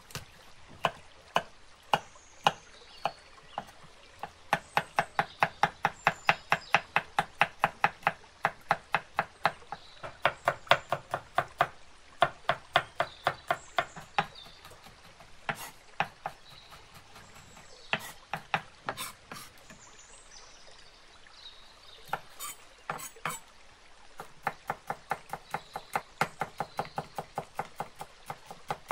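Chef's knife chopping garlic cloves, then parsley near the end, on a bamboo cutting board. It makes sharp knocks of the blade on the wood: a few single strokes, then fast runs of about four knocks a second broken by short pauses.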